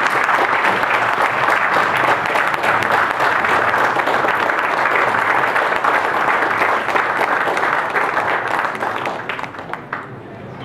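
Audience applauding, a steady dense clapping that dies down about nine seconds in.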